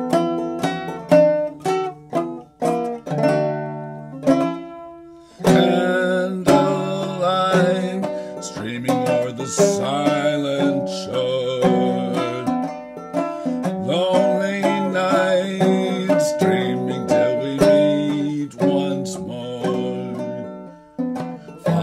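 Banjo played clawhammer style in D, plucked notes ringing out on their own at first. About five seconds in, a man's singing voice comes in over the banjo.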